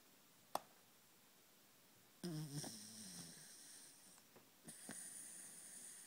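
Corgi snoring in deep sleep: noisy snoring breaths start about two seconds in and come again near the end. A single sharp click just after the start is the loudest sound.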